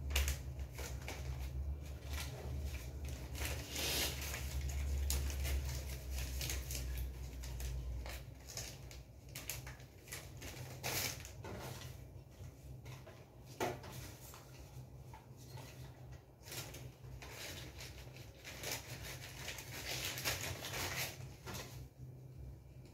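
Hands rustling and crinkling thin white plastic wrapping, with small clicks and knocks against a metal cookie tin. A steady low hum underneath stops about a third of the way through.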